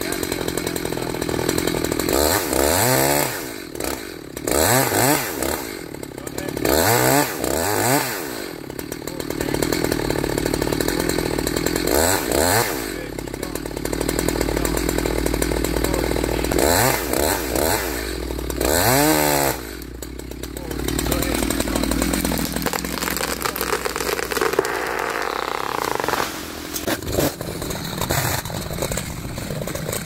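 Gas chainsaw cutting through a sweet gum trunk in a felling cut, its engine revved up and down about six times during the first two-thirds, then running more evenly for the rest.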